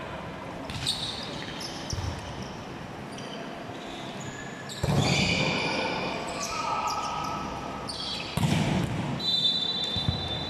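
Indoor volleyball rally: a volleyball is struck by hand several times with sharp slaps, the loudest about five and eight and a half seconds in, each followed by players calling out, in a large echoing sports hall.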